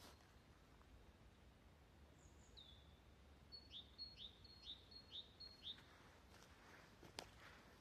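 A songbird singing faintly in woodland: a couple of high notes, then one phrase repeated five times, each a short high note falling in a quick downward slur. Near the end come a few footsteps on the forest floor and one sharp click.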